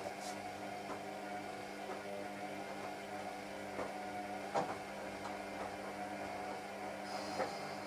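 Washing machine running: a steady motor hum with a few light clicks and knocks, the loudest about halfway through.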